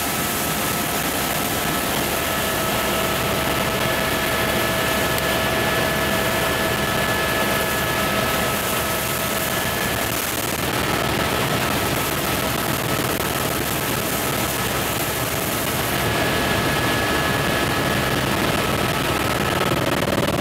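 Helicopter engine and rotor noise heard inside the cabin: a steady drone with a faint steady whine that fades about halfway through and returns near the end.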